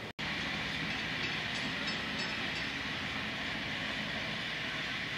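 Steady rushing noise that cuts out for a moment just after the start, with a few faint ticks.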